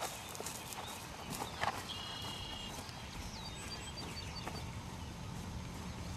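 Hoofbeats of a horse cantering on grass turf, heard as a scattering of soft, irregular footfalls.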